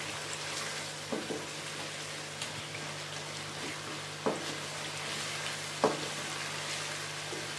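Chicken pieces sizzling as they are stir-fried (bhuna) in a nonstick wok, with a steady hiss. A wooden spatula scrapes and knocks against the pan a few times, most sharply about six seconds in.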